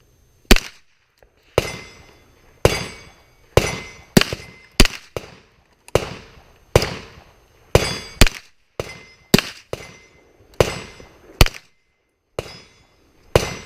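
A firearm firing a string of single aimed shots, about fifteen at an uneven pace of roughly one a second, each sharp report followed by a short echoing tail.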